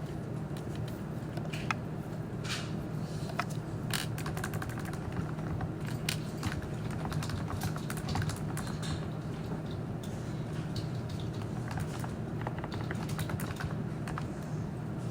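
Typing on a computer keyboard: a run of uneven key clicks, with a steady low hum underneath.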